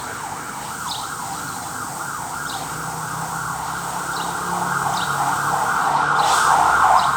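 A siren wailing in a fast, repeating rise-and-fall yelp, growing louder toward the end.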